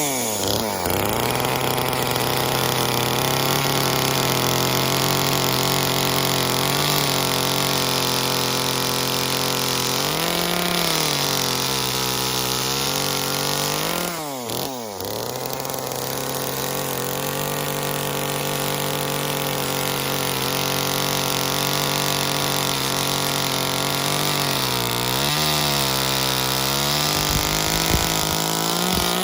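Small top-handle two-stroke chainsaw running at high revs while cutting an outline into a wood carving block. The engine pitch dips and recovers several times, dropping sharply about halfway through, as the chain bites into the wood.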